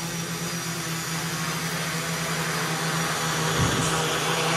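Small quadcopter's electric motors and propellers whirring steadily as it hovers low and drifts off trim. About three and a half seconds in, the low hum dips and wobbles briefly.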